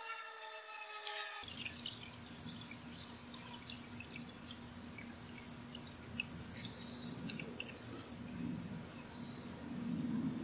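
Water dripping and splashing in a bucket, with small wet clicks and squelches, as a decomposed wolf head is handled and its flesh cut away with a knife. A slowly falling humming tone sounds for the first second and a half.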